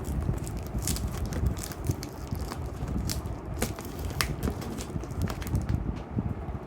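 Cardboard shipping box being cut and opened by hand: irregular crackles and sharp clicks of cardboard and packing tape over a low rumble of handling.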